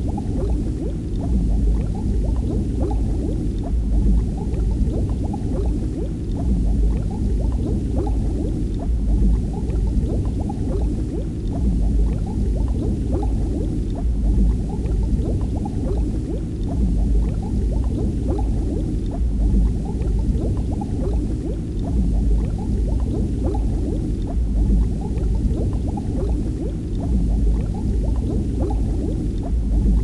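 Steady underwater bubbling and gurgling over a low rumble, unbroken throughout.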